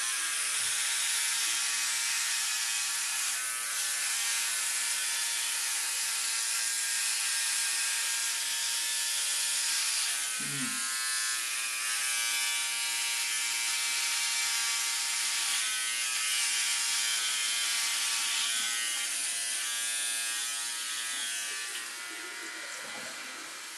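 Philips OneBlade electric trimmer running with a steady buzz while shaving through shaving foam in a wet shave. It gets quieter near the end and stops.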